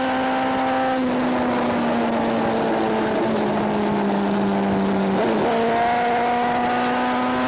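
Onboard sound of a racing superbike engine at high revs. Its pitch shifts a few times with gear changes: down about a third of the way in, up again past the middle, and it slowly sags or climbs in between. A steady rush of wind noise runs underneath.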